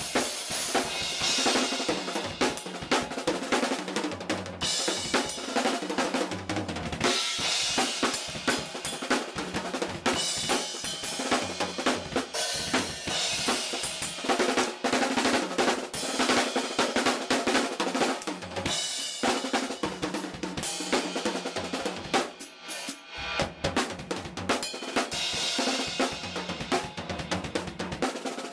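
Drum kit played continuously, with snare, bass drum, hi-hat and a wash of cymbals, recorded through a Flip MinoHD camcorder's built-in microphone. The playing thins briefly a little past two-thirds of the way through, then picks up again.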